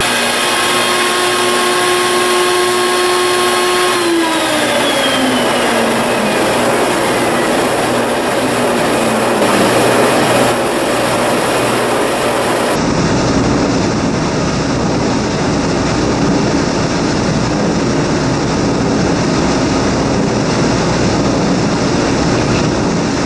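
Table-mounted router motor running at speed, then spinning down after being switched off, its whine falling in pitch from about four seconds in until it fades out near ten seconds. A steady, loud rushing noise runs under it throughout.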